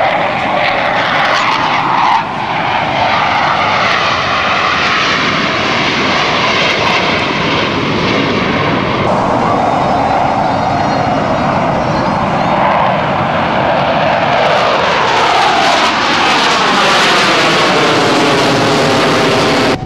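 Jet noise from a formation of Blue Angels F/A-18 Hornets, twin turbofans per jet, flying over: a loud, steady rushing roar with a sweeping, phasing whoosh as the jets pass. The sound changes abruptly at about two and nine seconds in.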